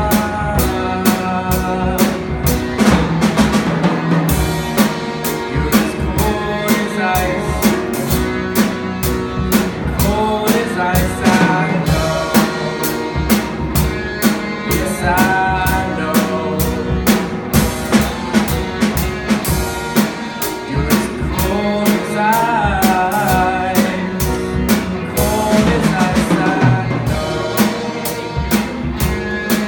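Rock band playing live: electric guitar and a drum kit keeping a steady beat with kick drum and cymbals, with a sung vocal line coming and going.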